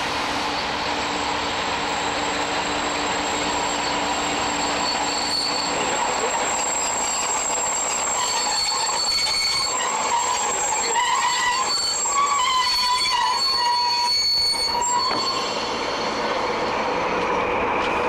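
A mainline diesel locomotive running slowly while shunting. From about 8 s in, a high, wavering metallic squeal from the running gear rises over it for several seconds and then fades.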